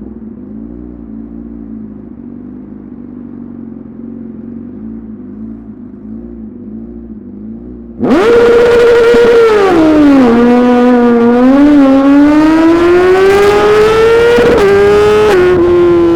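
Suzuki GSX-R 1000 R inline-four through a full titanium SC-Project exhaust, running quietly at low revs for about eight seconds. Then the throttle snaps open and it turns loud, its pitch dipping and then climbing steadily, with a sudden step near the end as the revs change.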